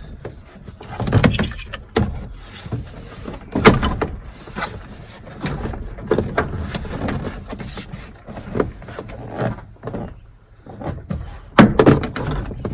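Plastic interior door trim panel of a Ford F150 being pushed, rattled and knocked against the door as it is worked onto its hooks, with several sharp knocks and clicks, strongest about a second in, near four seconds, and near the end; the panel is not yet hooking on properly.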